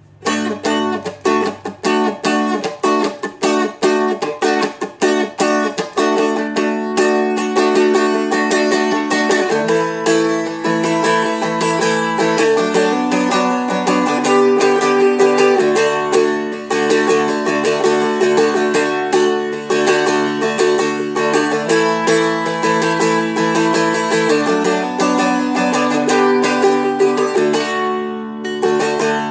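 Seagull Merlin, a small four-string dulcimer-style instrument, strummed in a quick steady rhythm through a chord progression, with the chords changing every few seconds.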